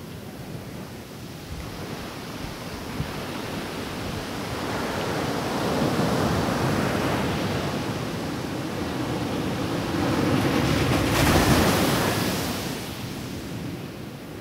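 Ocean surf breaking on a sandy beach and washing up the shore. It swells twice, and the loudest crash comes about eleven seconds in before it eases off.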